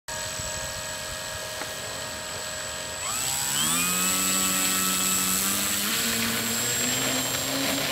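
Electric brushless motor (Turnigy 4260 500KV on a 6S pack) and propeller of an RC Piper Cub whining steadily. About three seconds in, the whine rises quickly in pitch and gets louder as the throttle is opened, then holds at a steady higher whine.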